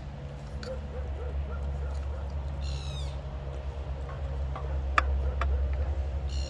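Metal utensil scraping and tapping vegetables out of a metal cooking pot, with a sharp clink about five seconds in. Under it there is a steady low rumble, and brief high falling chirps come about three seconds in and again at the end.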